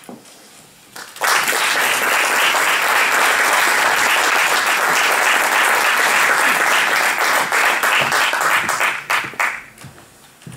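Audience applauding, starting about a second in and dying away into a few scattered claps near the end.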